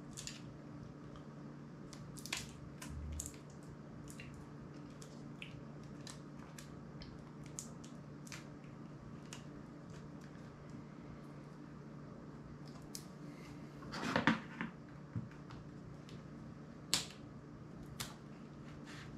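Small metal hand tools clicking and scraping on an opened smartphone while prying at its glued-in battery, whose pull tabs have broken off. The clicks are short and scattered, with a longer scrape about three quarters of the way through, over a steady low hum.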